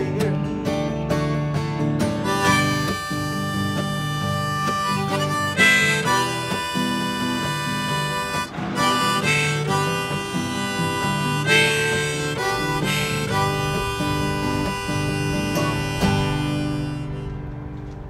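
Harmonica in a neck holder played over a strummed acoustic guitar, an instrumental outro to a folk song; the last chord dies away near the end.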